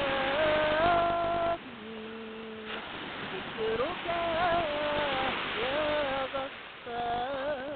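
A voice humming a slow devotional chant melody without words, in long held notes that waver and slide between pitches, with short breaks between phrases, over a steady hiss.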